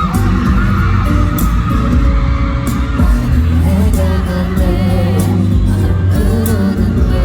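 Live pop ballad performed with a band: a male lead vocal over bass, guitar and regular drum hits.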